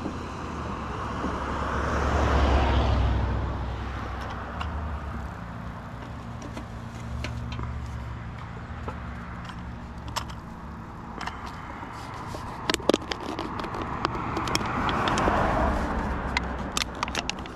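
Road traffic: a steady low rumble, with one car passing about two seconds in and another near the end. A scatter of sharp clicks and clinks comes in the second half.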